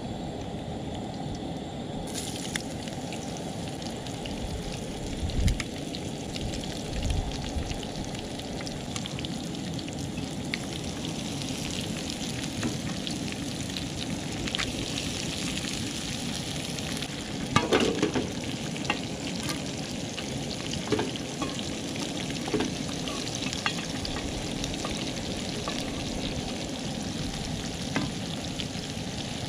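Bacon, potatoes and onions sizzling steadily in a skillet on a Coleman propane camp stove, with a few short knocks as the food is handled and stirred.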